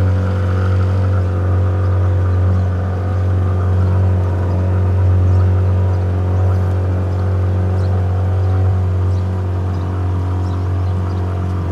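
Small boat's motor running steadily underway, a low even drone with no change in speed.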